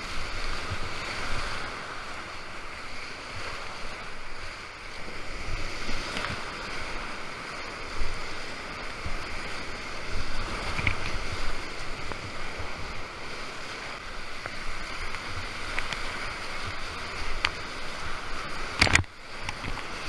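Whitewater rapids rushing steadily around a kayak, heard close from the boat, with low buffeting thumps on the microphone. A few sharp knocks sound through the rush, the loudest near the end.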